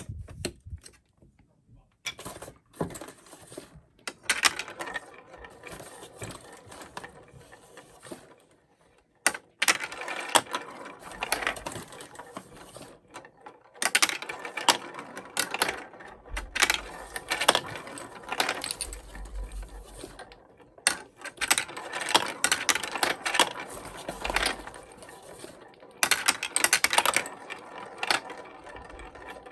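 Plastic marble run pieces clicking and clattering in rapid runs of a few seconds each, separated by short pauses.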